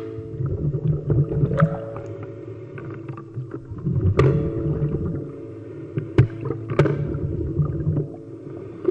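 Muffled water movement heard through an underwater microphone: a churning low rumble with several sharp clicks and knocks, over steady held tones.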